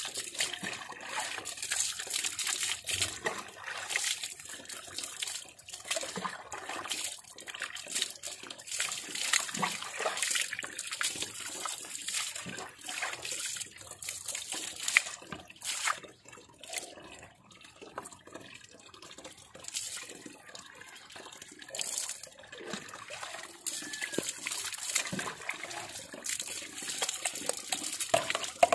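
Water poured from a plastic mug over long hair, splashing and pattering onto the wet ground in repeated, uneven pours, with a quieter stretch in the middle and hands squeezing water out of the hair near the end.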